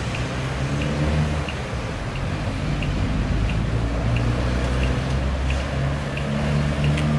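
Road-works vehicle's diesel engine running, its pitch shifting, with a reversing alarm beeping evenly about every two-thirds of a second.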